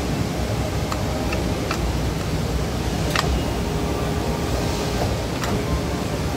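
Hydraulic sheet-metal folding machine with its pump running: a steady low hum, with a few sharp clicks about one, two, three and five seconds in.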